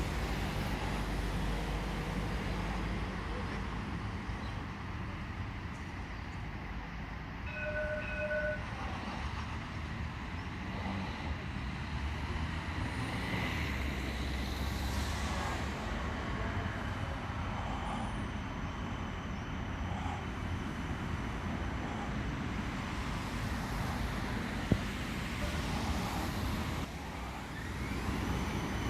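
Light rail vehicle on test running past, a steady rumble throughout, with a brief tone about eight seconds in.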